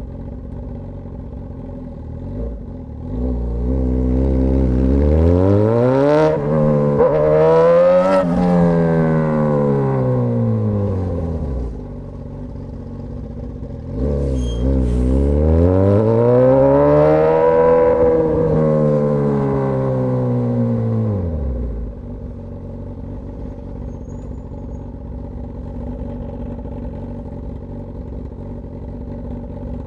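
Straight-piped Suzuki GSX-S1000 inline-four engine idling, then twice climbing smoothly in revs over several seconds and falling back to idle: once a few seconds in and again about halfway through.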